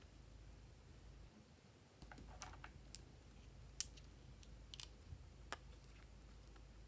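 Faint clicks and taps of small nail polish bottles and their plastic caps being handled and twisted open, scattered over near silence; the sharpest click comes a little past the middle.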